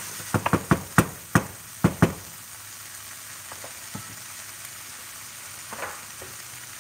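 Broccoli and cauliflower sizzling steadily in a frying pan on low heat. In the first two seconds a silicone spatula stirs them, knocking against the pan about eight times in quick succession.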